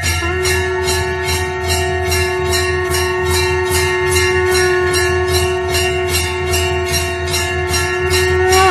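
Temple bell rung rapidly and evenly, about four strikes a second, so its ring carries on as a steady tone between the strikes.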